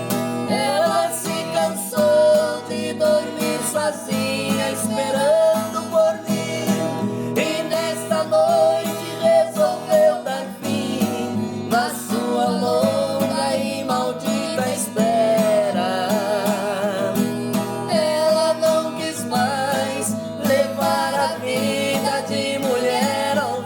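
Music: strummed acoustic guitar under a melodic lead line that wavers with vibrato.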